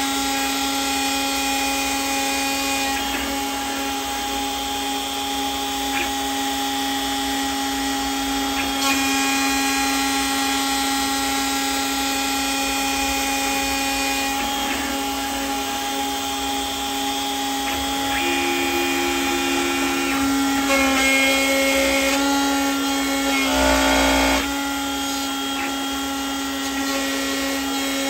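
CNC milling machine spindle running with an end mill cutting aluminium plate: a steady whine of several tones over cutting noise. It gets louder for a few seconds about three-quarters of the way through, then settles back.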